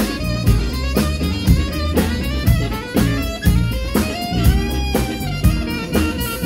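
Live funk band playing, an alto saxophone carrying the melody over drum kit, electric bass and electric guitar. The drums keep a steady beat of about two hits a second, and the sax line swells into a held, arching note about four seconds in.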